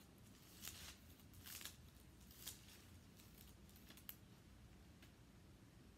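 Faint rustling of thin Bible pages being leafed through, a few soft rustles in the first four seconds, over quiet room tone.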